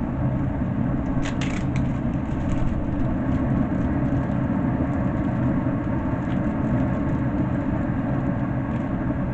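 A steady low rumble, with a few short sharp clicks about a second and a half in.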